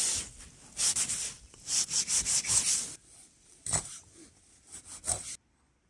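Chinese kitchen cleaver scraping scales off a small fish on a wooden cutting board in a run of quick strokes, followed by two sharp chops of the blade against the board, the second near the end.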